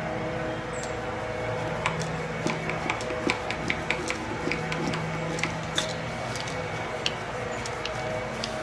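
Scattered light clicks and taps of small wooden parts and a screw being handled and worked by hand, over a faint steady hum.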